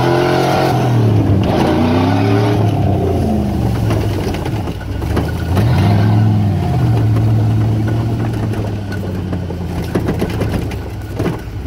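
Truck engine, heard from inside the cab as the truck drives slowly over a rough woodland dirt track. The engine pitch rises and falls a few times in the first three seconds and again about six seconds in, then holds steady. Scattered clicks and knocks come in the second half.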